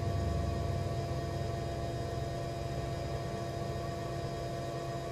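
Steady room tone: a constant low hum with a few faint, unchanging tones held over it.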